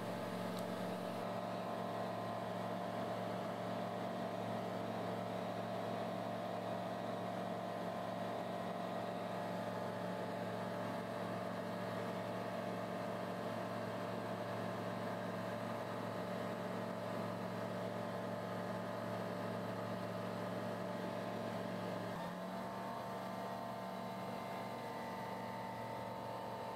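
Engine and propeller of a TL Ultralight Sting light aircraft droning steadily in cruise flight, heard from inside the cockpit. About three-quarters of the way through, the pitch shifts slightly and the drone gets a little quieter.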